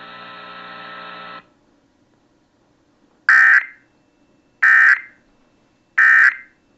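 Three short bursts of Emergency Alert System SAME data tones, the End-of-Message signal closing a severe thunderstorm warning, each about a third of a second long and evenly spaced about 1.3 seconds apart. Before them a low, steady buzzy hum cuts off after about a second and a half.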